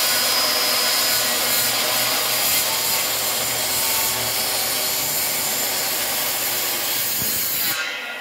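Corded circular saw cutting through a wooden post, the blade running steadily under load; near the end the saw is released and stops.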